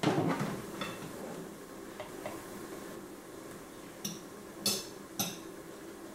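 Clatter of the electric omelette maker being opened at the start, then three sharp clicks of kitchen utensils knocking against plates a little past four and five seconds in.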